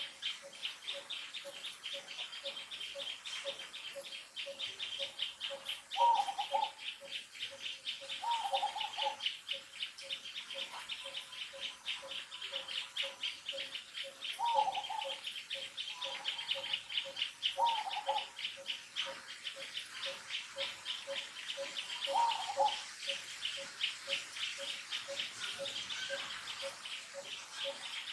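Outdoor chorus of birds and insects: a fast, high chirring that never stops, a low short note repeating about twice a second, and a handful of brief calls that stand out now and then.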